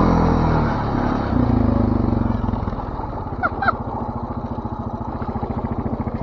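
ATV (four-wheeler) engine running under throttle, then easing off to a steady, pulsing idle about two and a half seconds in. Two short high chirps about three and a half seconds in.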